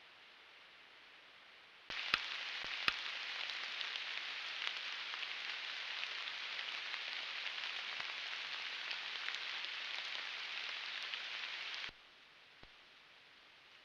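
Rain falling on the forest floor and leaves: a dense, steady patter with scattered drop clicks and two sharper taps near its start. It cuts in about two seconds in and cuts off suddenly near the end, leaving only faint hiss.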